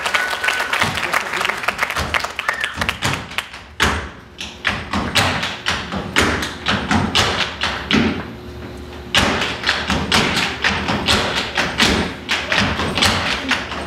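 Tap shoes striking a stage floor in fast rhythmic runs of taps, with short breaks about four and eight seconds in.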